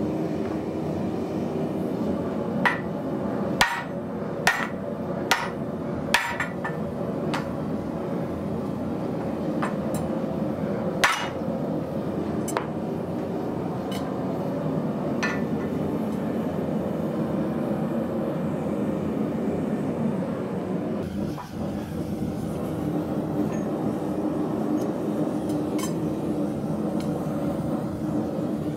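Hammer blows on a square steel drift driven into a red-hot heavy-wall steel tube: a run of five strikes about a second apart, then scattered single blows that thin out. A steady machine hum runs underneath.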